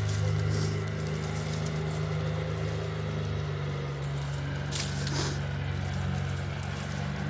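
A machine's steady low hum, with two brief scratchy noises about five seconds in.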